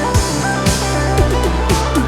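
Background music: electronic track with guitar and a steady beat, with a rising synth sweep starting near the end.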